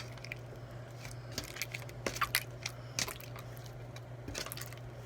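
Slime being kneaded and squeezed by hand, giving off irregular little clicks and crackles, over a steady low hum.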